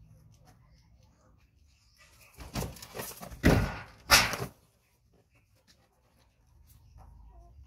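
A baby monkey jumping onto and clambering on a hanging cloth curtain: a brief burst of rustling and thumping about two to four and a half seconds in, with two loudest thumps close together.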